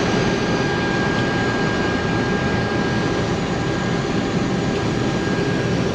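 International Harvester Axial-Flow combine running steadily under load while cutting wheat, a dense machine noise with a thin steady whine above it.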